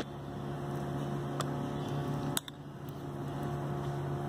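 Steady electrical hum, with a few light clicks: one at the start, one about a second and a half in and a sharper one near the middle.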